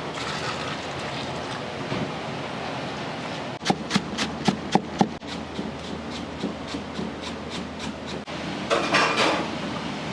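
Restaurant kitchen work: a quick run of about seven sharp knocks, like utensils or a knife striking a board or pot, about four seconds in, and a short clatter near the end, over a steady kitchen hiss.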